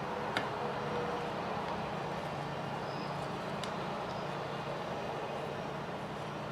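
Steady low background hum of room noise, with two light, sharp clicks of small parts or a hand tool being handled on the workbench, about half a second in and again near the middle.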